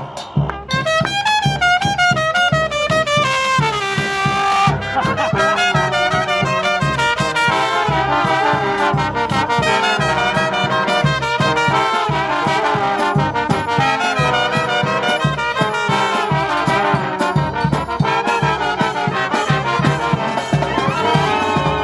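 Brass band playing a lively up-tempo tune, with quick falling runs in the first few seconds over a steady beat.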